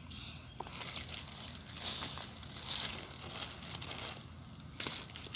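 Slime being stretched and worked in the hands, making a crackling, crinkly noise, with a couple of short clicks.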